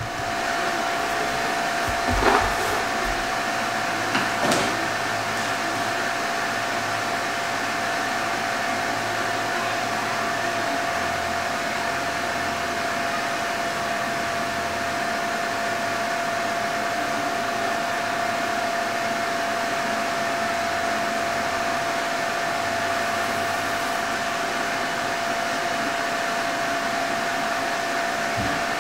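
Mac Pro tower's cooling fans running steadily during boot: a constant rush of air with a steady whine. Two light knocks come within the first five seconds.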